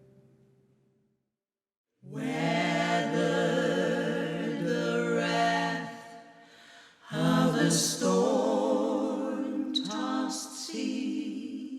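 An acoustic guitar chord rings out and fades away. After a moment of silence, female voices sing a cappella in close harmony with vibrato, in two phrases with a short break between them.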